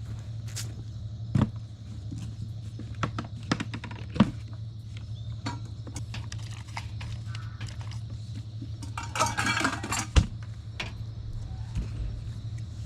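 Scattered clinks and knocks of objects being handled, with a short rattling rustle about nine seconds in, over a steady low hum.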